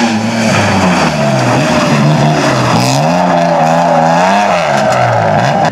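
BMW E36 3 Series rally car engine under hard throttle, its note climbing and dropping several times through gearshifts and lifts, with a hiss of tyres throwing spray on wet tarmac.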